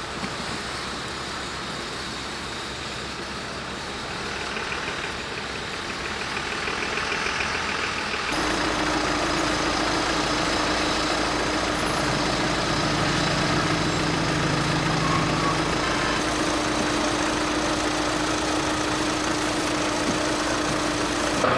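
Emergency vehicles idling, a steady engine noise. After an abrupt cut about eight seconds in it is louder, with a constant drone.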